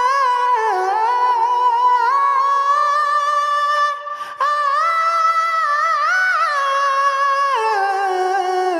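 A single voice singing a slow wordless melody, held notes with light vibrato stepping up and down, with no accompaniment. It breaks off briefly about four seconds in.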